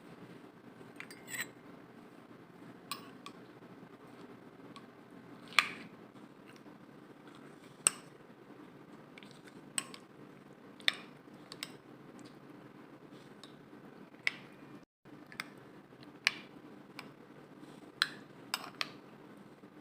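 Light clinks and taps of kitchen utensils and dishes being handled, a sharp click every second or two over a low steady hum.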